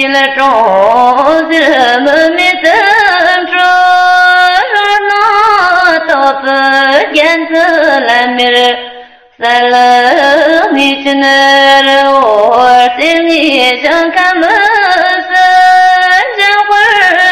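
A single voice singing a Tibetan Buddhist guru yoga prayer to a slow melody of held, wavering notes, in two long phrases with a short break for breath about nine seconds in.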